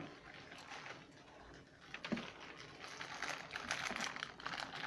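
Crackers being broken and laid into a baking pan: quick, light clicks and crackles, thickest in the second half.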